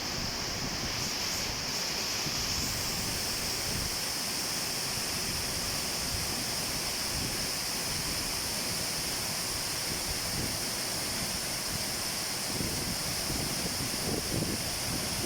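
Steady rush of water, an even hiss that stays level throughout, with a few soft low bumps near the end.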